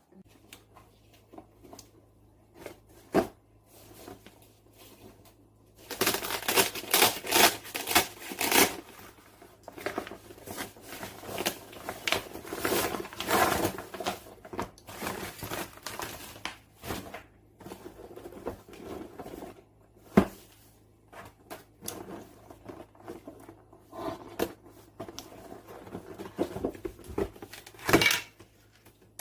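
Gift-set packaging being unpacked by hand: plastic and cardboard crinkling and tearing in long rustling stretches, with a few sharp knocks as items are handled and set down.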